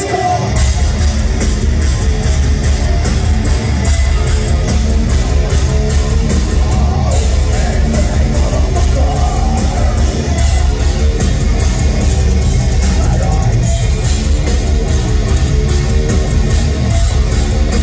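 Heavy metal band playing loud live, with distorted guitars, a fast steady drumbeat and vocals, heard from within the crowd in a concert hall.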